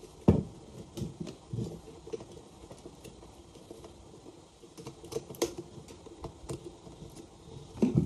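Stainless steel electric kettle being handled, tilted and set down on a wooden surface: knocks, taps and clunks. A loud knock comes about a third of a second in, and a cluster of clunks comes near the end.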